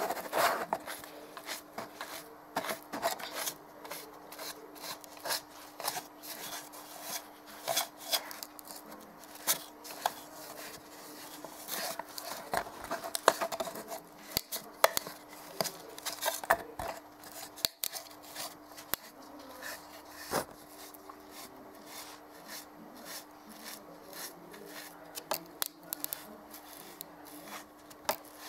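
Foam sponge rubbing and dabbing acrylic paint onto a plastic bottle, in irregular short scratchy strokes with clicks and crackles from the handled plastic.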